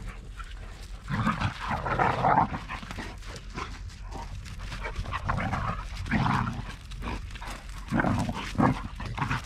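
Dogs vocalising in several short, irregular bursts, the longest about a second in.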